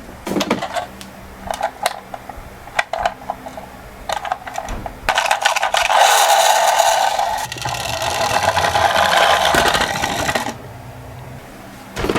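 Toy minicars clicking and knocking as they are handled. About five seconds in, a toy car's wheels start a loud rattling whir as it rolls, lasting about five seconds before stopping.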